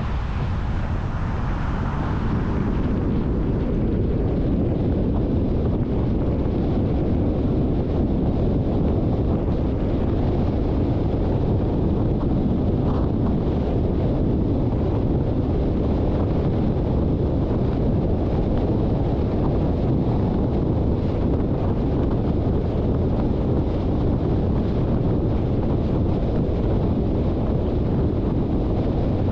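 Car driving: a steady low rumble of road and wind noise, with wind buffeting the microphone, a little louder after the first couple of seconds.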